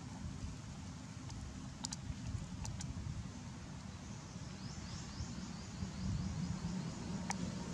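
Outdoor ambience: a steady low rumble with a few sharp clicks, and a run of quick high chirps about four to six seconds in.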